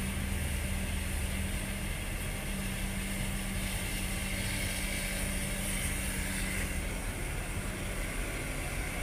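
Steady drone of heavy diesel engines: a tracked excavator working as it digs mud, and a dump truck pulling up beside it.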